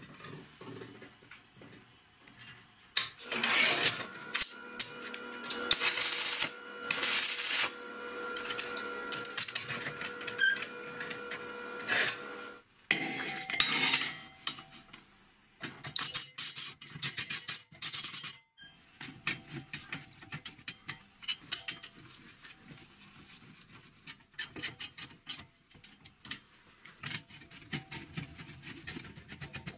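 Wire brush scrubbing steel, irregular rough scraping strokes with short clicks and knocks of metal; the longest, loudest scraping comes in the first half, then quicker short scratches.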